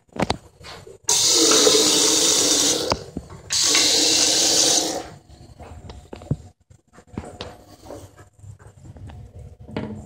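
A sink faucet runs into the basin twice, about two seconds and then a second and a half. Each run starts and stops abruptly.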